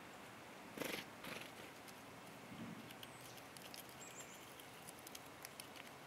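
Gray squirrel moving over the stones and feeding on nuts at close range: a brief rustle about a second in, then a run of faint small clicks as it gnaws.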